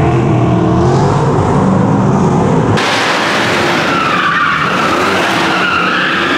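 Two Nissan S13 drift cars drifting in tandem, engines revving hard and wavering in pitch. A little under three seconds in the sound changes abruptly, and a wavering high tyre squeal over the engines takes over.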